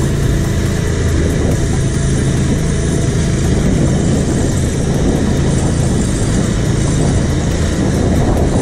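Cat AP655F asphalt paver's diesel engine running steadily, heard close up from on the machine, with a deep, even engine hum.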